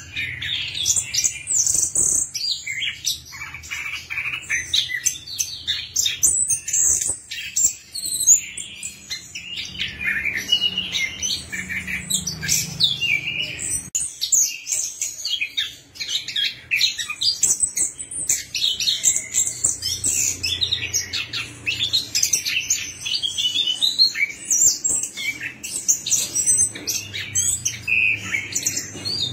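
Chestnut-capped thrush (anis kembang) in song: a long, unbroken run of rapid, varied high chirps and trills.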